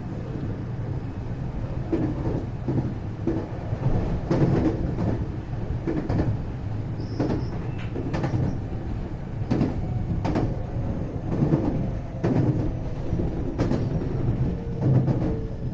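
Running noise inside a 521 series electric multiple unit motor car: a steady low rumble of wheels on rail, with irregularly spaced clicks as the wheels pass over rail joints and a faint steady tone.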